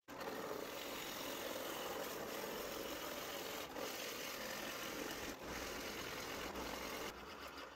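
Drill press running steadily as a 1.5-inch Forstner bit bores deep into a wooden block: a constant motor whir mixed with the rasp of the bit cutting wood, tailing off near the end.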